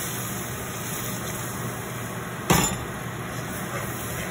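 Water poured into a clay pot of thick chili masala paste, then a steel spoon stirring it, with one sharp knock about two and a half seconds in.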